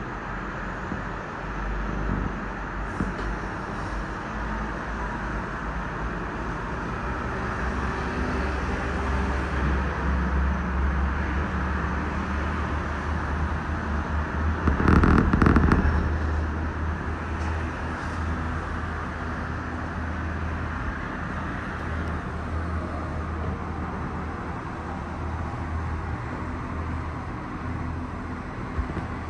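Steady rumble and hiss of a Disney Skyliner gondola cabin in motion, heard from inside the cabin. A louder burst lasting about a second comes about halfway through.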